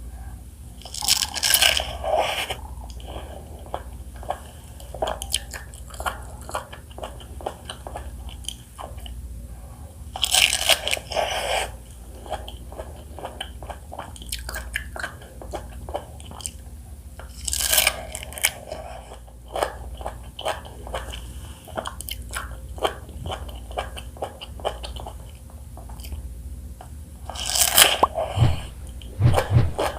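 A person biting into and chewing fresh fruit: four loud crunching bites, roughly eight seconds apart, with quieter chewing and wet mouth clicks between them.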